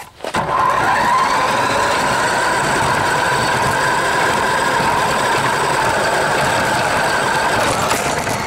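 RC car's motor and drivetrain running hard at a steady speed, a loud whine with a rushing noise, heard from a camera riding on the car. It starts just after the beginning and eases off near the end.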